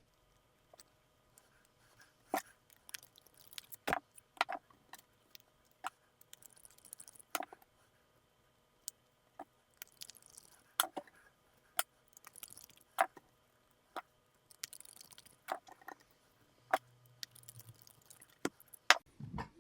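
Scattered light clicks and taps of a small hex driver and bolts being handled while fitting brass hubs to an RC crawler's beadlock wheel, with a few short scrapes and a brief low hum near the end.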